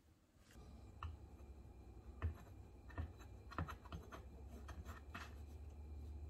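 Faint scraping and several light taps of a utensil on kitchenware, over a low hum that starts about half a second in.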